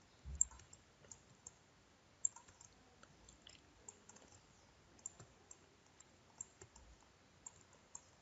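Faint, irregular clicking of a computer mouse being pressed and released while painting, with a soft low bump just after the start.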